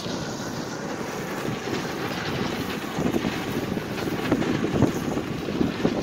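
Wind blowing across the microphone over the steady running noise of a sugar beet piling machine and trucks, gusting more unevenly in the second half.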